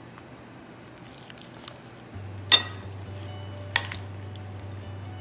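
Kitchenware clinking twice against a glass mixing bowl as salad is scooped out onto a platter, the first clink the louder, about a second apart.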